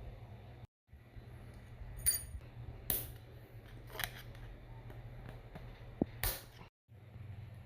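A few sharp metallic clicks and knocks of steel transmission parts and tools being handled, one about two seconds in ringing briefly, over a steady low hum.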